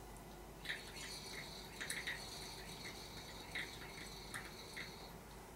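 A man eating a snack: faint small crunches and mouth clicks, spaced about a second apart.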